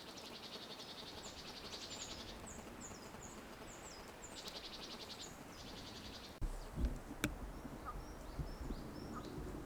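Small birds calling: a fast buzzing trill, heard twice in the first five seconds, with short high chirps that drop in pitch. After a sudden cut about six and a half seconds in, a few fainter chirps sound over a low rumble.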